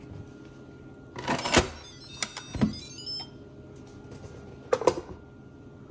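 Instant Pot lid being unlocked and lifted off after the pressure release: a few short plastic-and-metal clicks and clatters, about a second in, again around two and a half seconds in, and near the end.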